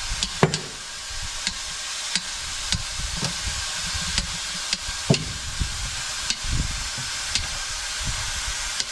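A suction-anchored dent-pulling winch being tensioned on a dented car quarter panel: a steady hiss with sharp clicks every half second to a second, and two louder knocks, one about half a second in and one about five seconds in, as the pull load builds.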